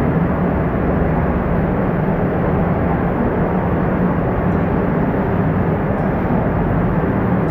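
Steady rushing of water echoing through a water-filled cave passage, a constant even noise with no break.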